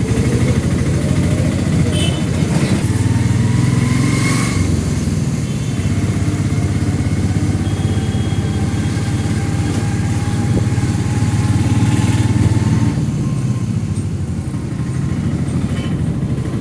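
Auto-rickshaw's small engine running as it drives along, heard from inside the cab; its pitch climbs slowly twice as it picks up speed, dropping back about four and a half seconds in and again about thirteen seconds in.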